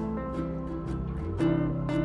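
Background music: plucked acoustic guitar playing held chords.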